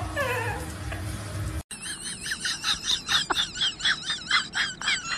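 Dogs vocalizing. A short falling whine comes in the first second, then after a cut a run of high-pitched, squeaky, wavering calls repeats about three times a second.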